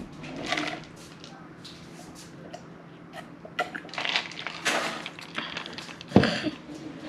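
Scattered small knocks and rustles of objects being handled on a tabletop, with one louder thump about six seconds in.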